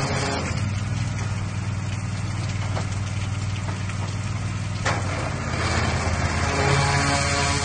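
Engine-driven pressure washer running steadily, with the hiss of its high-pressure spray striking a corrugated metal roof.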